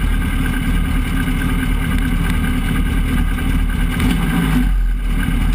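Race truck's engine idling steadily, heard from inside its cab, with a brief drop in the sound about five seconds in.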